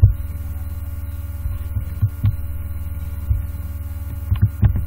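Steady low electrical hum picked up by the recording microphone, with a few short clicks and thumps about two seconds in and again near the end.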